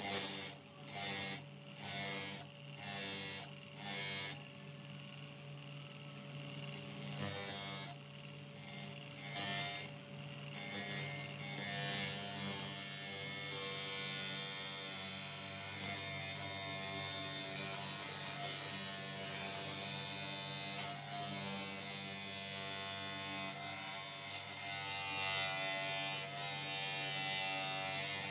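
Electric bench grinder with a large abrasive wheel running with a steady hum while a steel sword blade is pressed against it, grinding and throwing sparks. The blade meets the wheel in several short grinding bursts at first, then from about twelve seconds in it is held on for continuous grinding.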